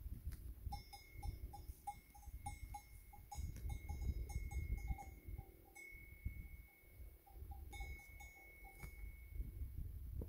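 A camel browsing on dry thorny shrubs close by, tearing and chewing the twigs, heard as an uneven low rumble. A faint rapid ticking with a thin high tone comes and goes in stretches.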